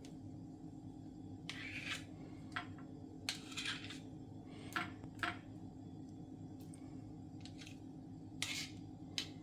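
A small metal spoon scraping and clinking against a small glass jar and a glass bowl as thick ground-rice paste is scooped from one to the other. There are several short, irregular scrapes over a steady low hum.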